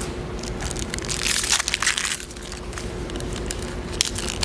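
Foil wrapper of a Yu-Gi-Oh! booster pack crinkling as it is handled and torn open, loudest a second or two in, with a sharp click near the end.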